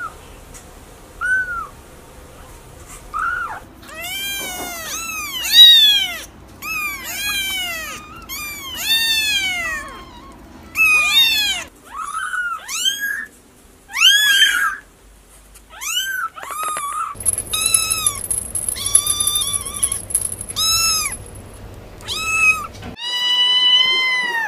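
Young kittens mewing: a long run of short, high-pitched mews, each rising then falling in pitch, coming in quick succession from several different kittens in turn. Near the end there is one longer, steadier mew.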